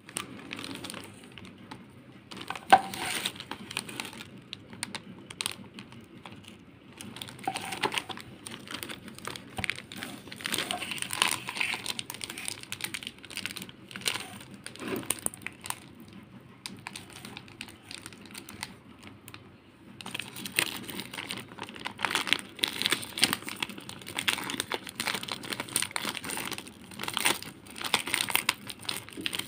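Plastic wrapper of a chocolate compound bar crinkling and crackling as it is handled and worked open, in irregular crackles with a sharp click about three seconds in. The crinkling gets denser and louder in the last third.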